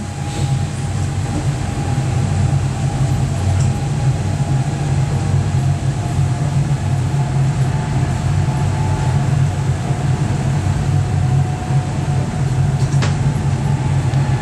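Sightseeing train's engine and running gear droning steadily, heard from aboard while it drives along.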